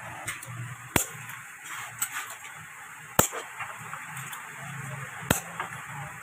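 Sharp knocks of a metal tool striking the lead straps and cell packs in a lead-acid battery case, three loud strikes about two seconds apart with lighter taps between.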